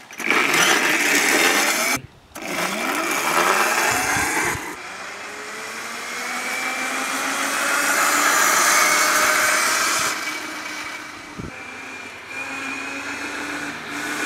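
A 1500-watt brushless electric scooter's motor whines as the scooter is ridden. The whine rises in pitch as the scooter picks up speed, then holds steady, over a steady hiss. The sound drops out briefly about two seconds in.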